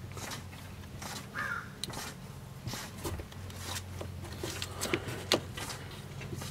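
Rubber fuel-line primer ball being squeezed by hand over and over, giving soft squishes and small clicks of its check valve about once a second, as it pumps fuel from the tank to prime an Onan generator's line. A steady low hum runs underneath.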